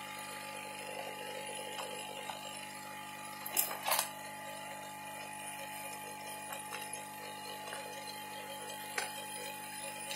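Steady electrical hum with a few sharp clicks of handling on the workbench: two close together about three and a half seconds in and a fainter one near the end.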